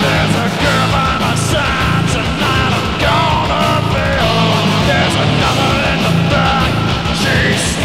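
Metal song playing with a full band at a steady, loud level.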